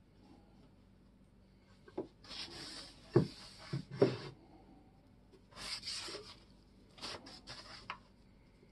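Small brush scrubbing on an old iron axe head: four short spells of scratchy rubbing. Sharp knocks around three and four seconds in, the loudest sounds, are the iron head being handled and set down on the bench.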